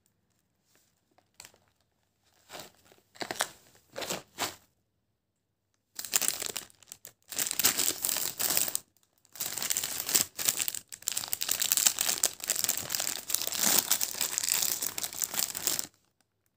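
Plastic snack packets crinkling and rustling as they are handled. There are a few short crinkles a few seconds in, then a brief pause, then almost continuous crinkling with short breaks until near the end.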